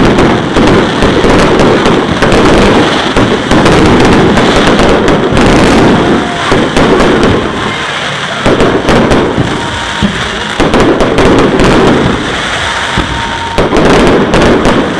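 Fireworks going off in a loud, dense barrage of bangs and crackling, with a couple of brief lulls.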